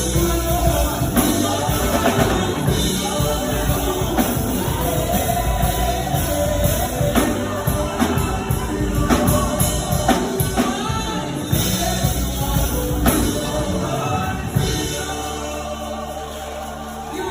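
Gospel worship music with singing over drums and percussion. Near the end the drumming drops away, leaving a held low bass note.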